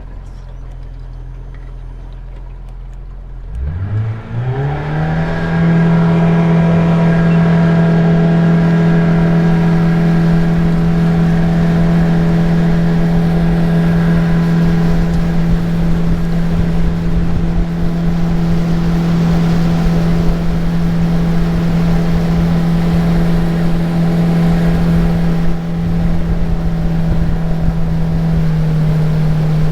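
Outboard jet-drive boat motor idling low, then about three and a half seconds in throttling up with a rising whine to full speed and running steady and loud at high revs. The pitch shifts briefly near the end.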